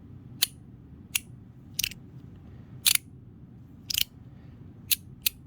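Magnetic fidget clicker with a middle section, its magnetic pieces snapping together and apart by hand: about seven sharp clicks at uneven intervals.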